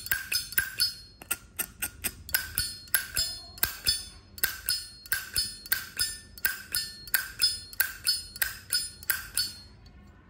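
Zippo lighter's hinged lid flipped open and snapped shut over and over, each stroke a sharp metallic clack with the lighter's ringing ping, a few times a second, stopping shortly before the end.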